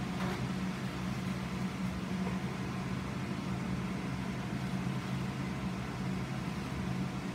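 Kitchen ventilation fan running with a steady low hum.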